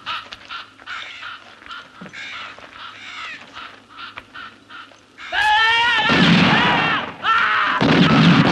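Crows cawing over and over in short calls. About five seconds in, loud shouting voices take over.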